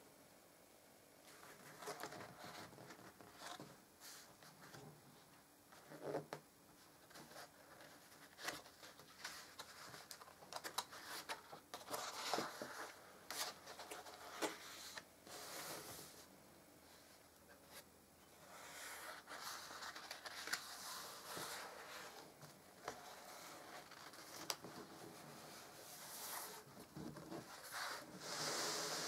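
Stiff card pages of an album being turned by hand: paper rustling, with soft taps and rubs as the sheets are handled and smoothed flat. The rustles come in several longer swells, the loudest near the end.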